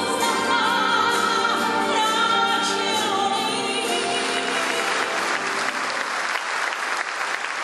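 A female vocalist holds the closing note of a ballad over a wind orchestra of clarinets and bassoons. The music ends about four seconds in and gives way to audience applause.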